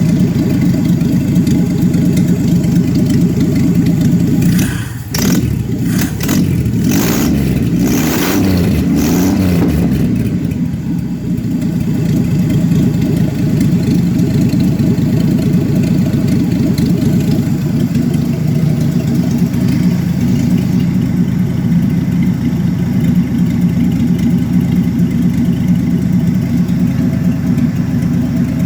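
1966 Chevrolet Impala's 250 cubic inch inline-six idling roughly. For a few seconds starting about five seconds in, the sound wavers in pitch and has several sharp bursts, then settles back to a steady idle. The rough idle is the fault the owner wants explained; its cause is unknown.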